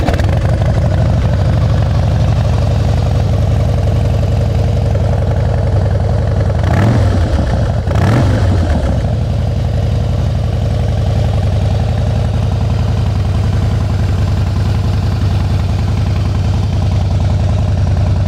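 The 2015 Harley-Davidson Fat Boy Lo's V-twin idles through its Vance & Hines exhaust, with two short throttle blips about seven and eight seconds in.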